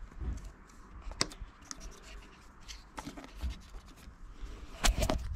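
A plastic trim tool scraping and prying along the aluminium window trim strip of a car door, with scattered sharp clicks as the trim's plastic retaining clips pop. One sharp click comes about a second in, and the loudest clicks come near the end.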